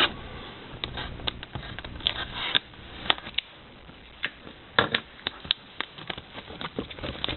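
A sealed trading-card box being handled and opened: irregular clicks, taps and short rustles of cardboard and wrapping.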